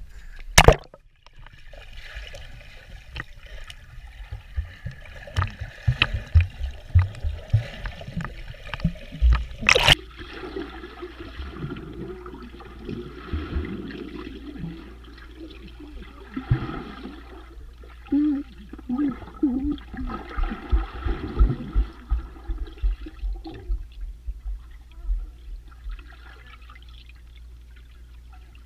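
Swimming-pool water with the microphone going under the surface: a sharp splash about half a second in and another near ten seconds, then muffled sloshing, bubbling and gurgling with dull thuds, thinning out near the end.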